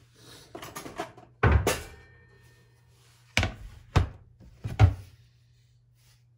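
Plastic cutting board knocked and shifted on a countertop as it is set down and turned around: about five sharp clacks spread over a few seconds, with rustling handling noise in the first second.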